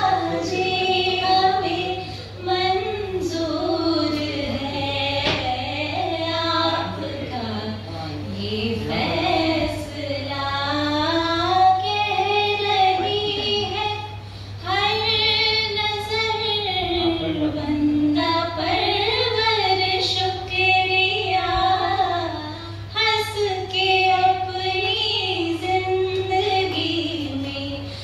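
A woman singing a melody unaccompanied into a handheld microphone, in long held phrases with short breaks for breath.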